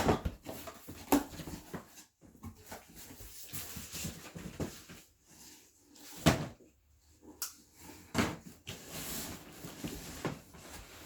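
Cardboard firework assortment boxes being handled: a handful of scattered knocks and thumps with rustling in between.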